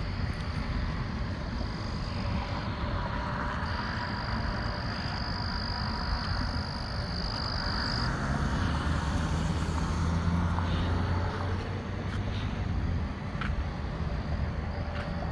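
A car driving past through the intersection on a wet road. Its tyre noise and engine swell to a peak just past the middle, then fade, over a steady low traffic rumble. A thin, steady high-pitched trill from night creatures runs in the background throughout.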